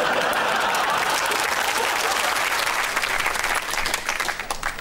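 Studio audience applauding at the end of a comedy sketch, thinning out near the end.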